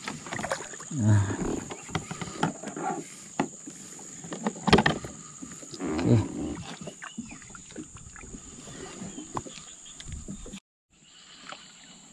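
Scattered knocks and clatters of fishing gear being handled in a kayak, the loudest about halfway through, with a few short low voice sounds and a steady high insect buzz underneath. The sound cuts out for about a second near the end.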